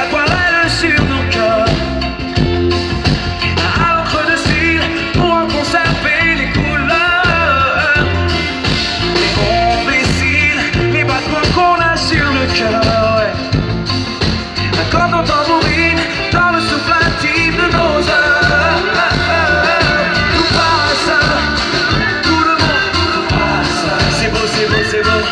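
Live pop band music amplified through a PA: a steady beat with bass, guitars and keyboards, and a melody line over it.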